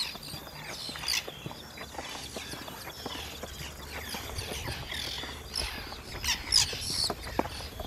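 Birds chirping in short high calls, in two clusters near the start and toward the end, with a few scattered light knocks over a low background rumble.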